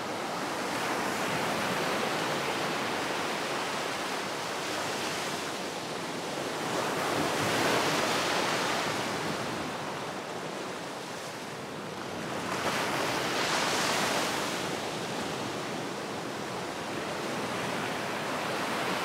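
Ocean surf: waves breaking and washing onto a sandy beach, a steady rush that swells louder twice, about a third of the way in and again near three-quarters.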